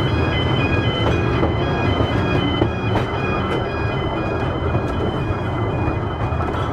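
Open-sided narrow-gauge electric tram rolling with a steady low rumble across a road level crossing. Over it, a high electronic warning tone steps back and forth between two pitches: the level crossing alarm.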